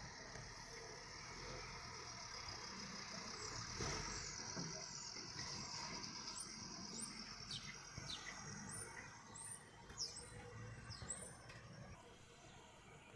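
Faint engine of a recovery truck driving away, heard through window glass, with a steady high whine for the first half or more. Birds chirp in short falling calls through the middle.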